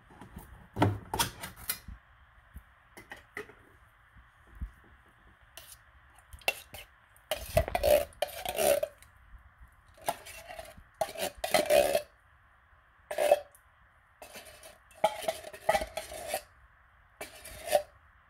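A metal spoon clinking and scraping against a can and a glass baking dish as cherry pie filling is scooped out, in short separate clatters with brief ringing.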